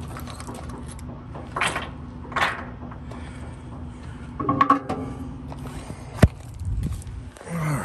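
Handling noise from a phone held against a fleece sleeve: two short rushing swishes, a clatter with a brief metallic ring, and a sharp click followed by a low thump, over a steady low hum.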